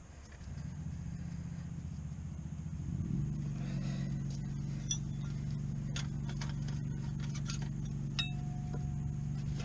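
An engine running steadily at idle, a low hum that grows louder about three seconds in, with a few light metallic clinks over it.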